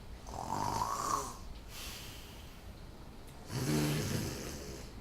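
A boy snoring: two long snores about three seconds apart, the first rising in pitch and the second a lower, buzzing snore, with quieter breathing between them.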